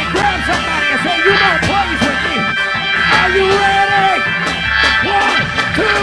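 Loud church praise music from a live band, with voices shouting and singing over it.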